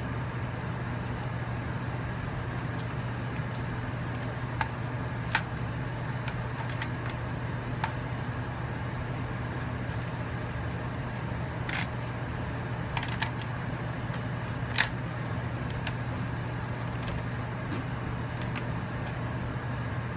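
Steady low hum of room background noise, with scattered light clicks and taps as the plastic Western Digital My Book Live enclosure is handled and turned over.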